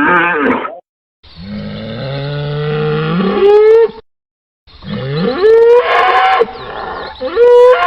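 Cattle mooing: a string of separate moos with short silent gaps between them. Several calls start low and slide up in pitch toward their end, and the higher ones hold a steady tone.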